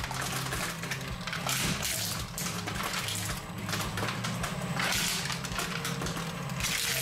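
Industrial shredder's blades turning with a steady motor hum, while hollow plastic toys bounce and scrape on the rotating steel teeth without being grabbed. Bursts of scraping and crunching come about a second and a half in, around five seconds in, and near the end.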